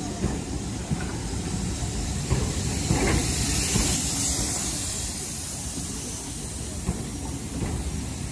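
Steam train's passenger coaches rolling past close by, wheels rumbling with scattered clicks, and steam hissing. The hiss swells loudest about three to five seconds in.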